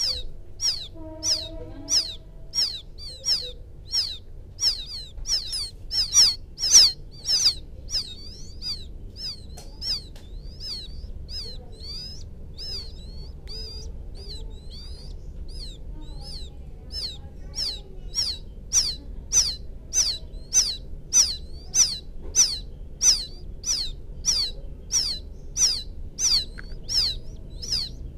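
Quail chicks calling for the mother bird: a steady run of short, high, down-slurred peeps, about one and a half a second, fainter for a few seconds in the middle.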